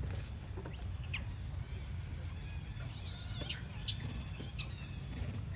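Short, high-pitched chirping animal calls: a pair about a second in, then a louder cluster about three seconds in, over a steady low rumble.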